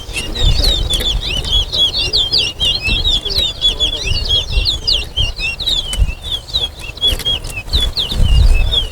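Towa-towa (chestnut-bellied seed finch) singing a fast, continuous song of short, high, curving whistled notes: competition song that is counted in a bird-singing race. A low rumble swells near the end.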